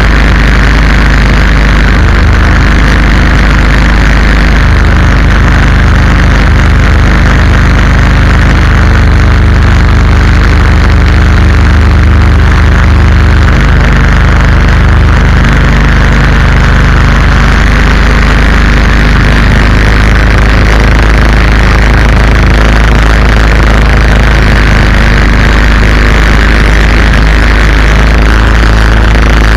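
Predator 212cc single-cylinder four-stroke inboard engine running loud and steady, driving the canoe's propeller shaft.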